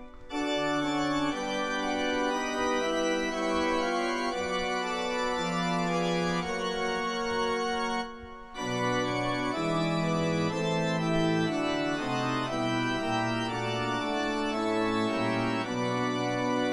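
Organ music: slow, sustained chords that change every second or so, with a short break about eight seconds in.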